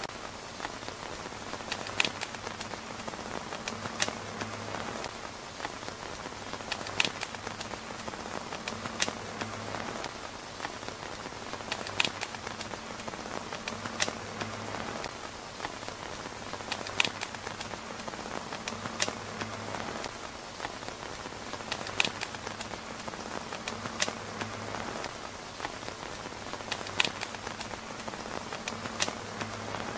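Steady rain falling on a tent roof, with single sharp drop taps every two to three seconds. The whole pattern repeats about every five seconds, as a loop.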